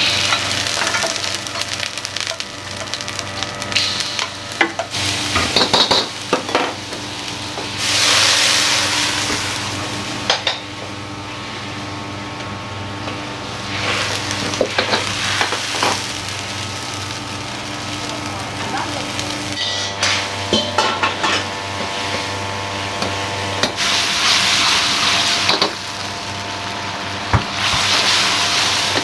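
Stir-frying in a wok: a metal ladle clanks and scrapes against the wok, with loud bursts of sizzling every several seconds as food meets the hot oil, over a steady kitchen hum.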